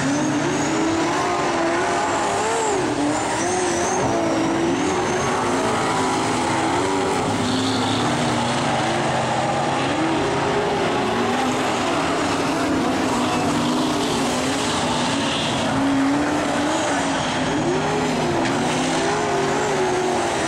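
Several dirt-track speedway race cars lapping an oval together, their engines revving up and falling away as they go through the corners, heard as overlapping rising and falling tones.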